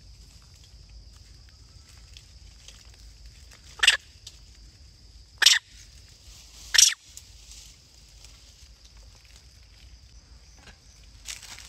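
Baby macaque giving three short, sharp squeaks about a second and a half apart, over a faint steady high-pitched drone.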